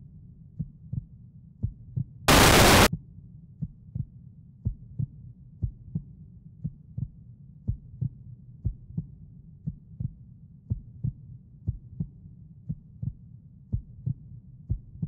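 A heartbeat sound effect beating steadily, about two to three beats a second, over a low drone. About two seconds in, a loud half-second burst of static-like noise cuts in sharply.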